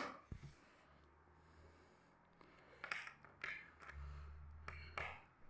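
Faint clicks and taps of plastic LEGO minifigures being picked up and set down on a hard floor, about five in all, with a low rumble of handling between them.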